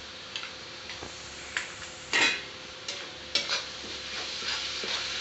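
Metal spatula scraping and clinking against a metal kadai as onion-tomato masala paste with powdered spices and salt is stirred in oil, with the loudest scrape just after two seconds. A soft sizzle of the masala frying grows louder from about four seconds in as it starts to roast.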